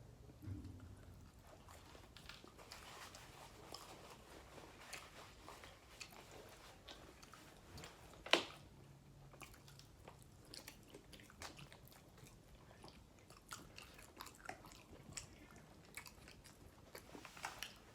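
Faint eating sounds: chewing and biting with scattered small clicks and crunches, and one sharper crack about eight seconds in.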